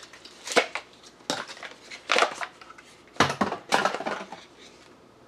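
Hard-to-open product packaging crackling and crunching as it is forced open by hand, in a series of short bursts with the loudest about half a second in and just after three seconds.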